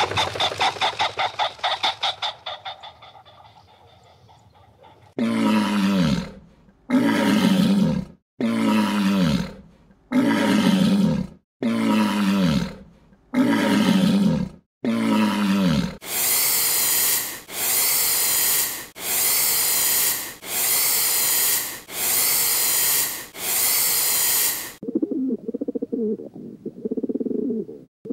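A run of different animal calls, one after another. First comes a fast pulsed call that fades away. Then come seven evenly spaced deep calls, each falling in pitch, then seven harsh, noisy calls, and finally a soft low cooing near the end.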